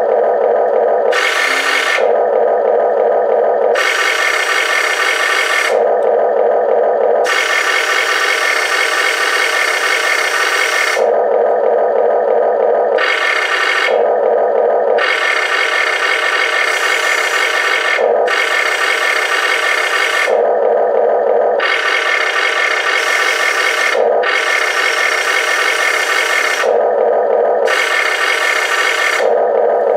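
Amewi 22501 RC excavator's built-in sound module playing a simulated engine drone. Every second or two it gives way to longer, harsher stretches as the arm and bucket are worked from the transmitter.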